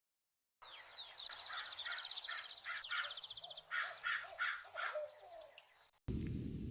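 Birds calling: a rapid, high trill together with a run of harsher, repeated calls. It starts about half a second in and stops suddenly about a second before the end.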